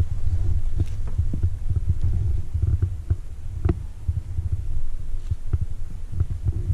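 Wind buffeting the microphone: a low, uneven rumble, with a few faint clicks and one sharper click about halfway through.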